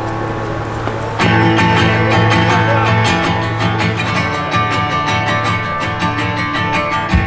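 Live band's guitar intro: strummed acoustic guitar with electric guitars over a low held note, a new chord struck about a second in and steady strumming after it.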